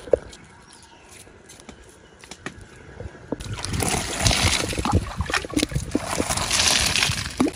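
Water poured and splashing over a handful of green onions as they are rinsed, starting about three and a half seconds in after a few light clicks.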